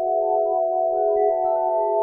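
Ambient background music: a held chord of several steady, sustained tones, with faint higher notes changing now and then.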